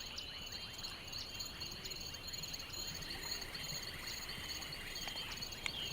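Steady chorus of insects, a continuous high-pitched trilling with several layered pitches.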